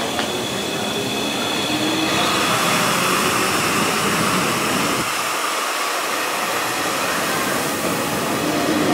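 E351 series limited express electric train moving at the platform: a steady rushing noise of wheels and running gear. A slowly rising motor whine comes in near the end.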